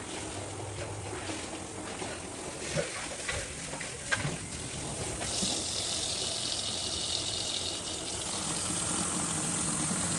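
Water running from a kitchen tap, with a few knocks of things being handled. The flow gets louder and hissier about five seconds in.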